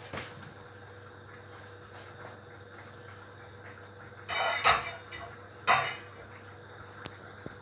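Stainless steel pot lid clattering against the kitchen counter twice, about a second apart, each with a short metallic ring.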